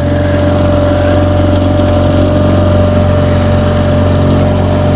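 A boat motor running steadily at a constant speed: a low engine hum with a steady higher tone above it.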